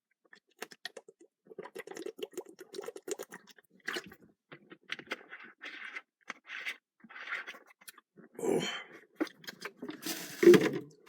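Small crackles and clicks as smoke is drawn through a pipe bowl, then a harsh exhale and cough near the end.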